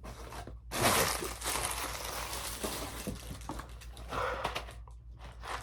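Plastic packaging crinkling and rustling as items are handled, starting about a second in and lasting a few seconds.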